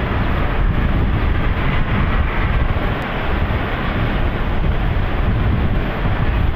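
Wind buffeting the microphone: a loud, steady, rumbling rush with no clear tones.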